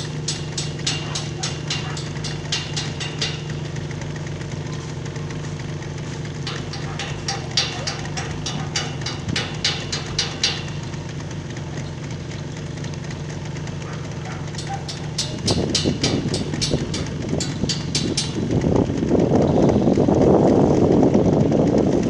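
Construction machinery engine running with a steady hum, over runs of quick, even tapping at about four or five a second. About two-thirds of the way in, a louder, rougher engine noise builds and holds to the end.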